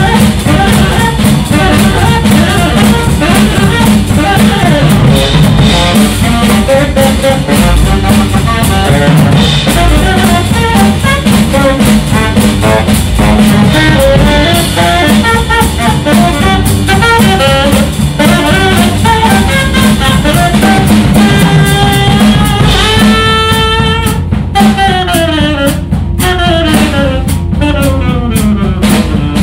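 Jazz trio of saxophone, double bass and drum kit playing, with the saxophone running busy lines over walking bass and drums. Near the end the saxophone holds one long note, then plays a series of quick falling runs.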